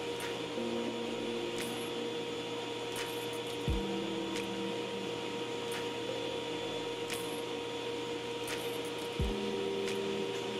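Steady drone of a workshop dust extractor running. A low thud comes twice, about five and a half seconds apart.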